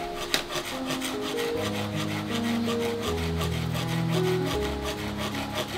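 A hand blade sawing back and forth into a green bamboo pole in quick, regular strokes, over background music with held notes.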